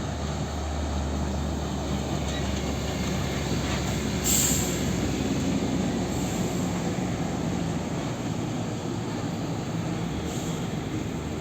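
Heavy diesel truck traffic: big truck engines running steadily as trucks pass, with a short hiss about four seconds in.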